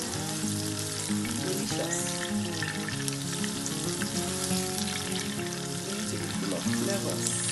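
Sliced onions sizzling and crackling in hot vegetable oil in a pot, stirred with a silicone spatula, with background music underneath.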